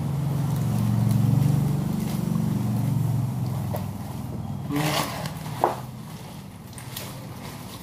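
A motor vehicle's engine hum passing by, swelling over the first second or two and fading away by about four seconds in. A short rustle near five seconds and a sharp knock just after.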